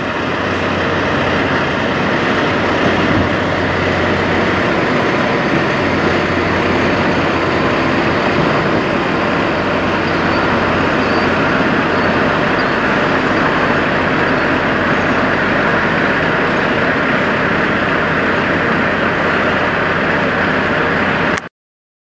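Peterbilt semi truck's diesel engine running steadily with a low hum as the truck pulls slowly through the lot; the sound cuts off abruptly near the end.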